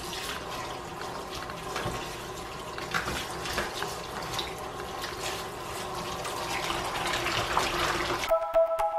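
Kitchen tap running into a plastic bowl of chopped wild spinach leaves, with a hand swishing and squeezing the leaves through the water and small splashes. Music comes in just before the end.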